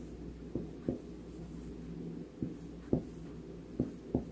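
Dry-erase marker writing on a whiteboard: about six short, separate strokes and taps of the felt tip as characters are drawn, over a low steady hum.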